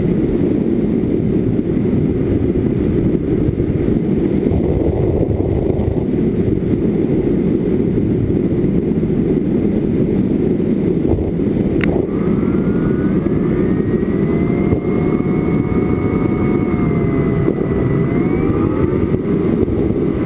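Wind rushing and buffeting over the onboard camera's microphone as a foam FPV wing flies. About halfway through, the whine of its electric motor and propeller comes up over the wind, wavering in pitch and then rising near the end.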